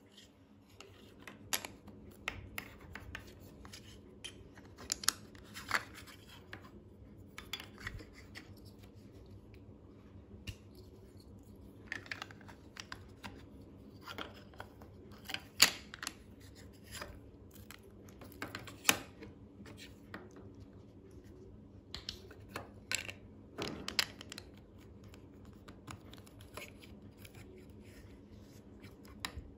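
Plastic LEGO bricks and plates clicking as they are pressed together and handled, in irregular sharp clicks and small rattles with pauses between them.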